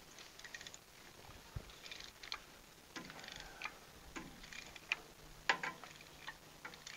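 Hand ratchet wrench clicking in short irregular runs as it is swung back and forth on a rusted spark plug core in a 1924 Fordson Model F's cylinder head, the core starting to come loose. The loudest clicks come a little past halfway.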